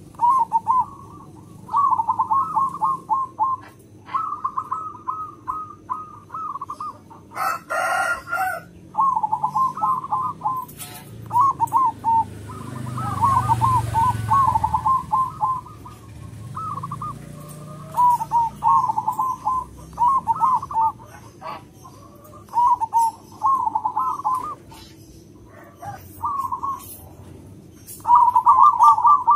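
Zebra dove (perkutut) cooing over and over, each song a quick run of staccato, trilling notes, with short pauses between phrases. A brief, harsher call cuts in about eight seconds in, and a low rumble swells and fades partway through.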